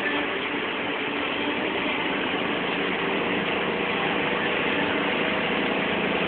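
Steady road and engine noise heard from inside a car cruising on a highway, an even rushing hum with no change in pace.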